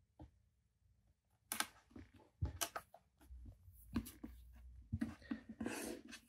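Hands pressing a replacement laptop screen panel down onto double-sided tape in its plastic lid: scattered sharp clicks and taps, then a stretch of rubbing near the end.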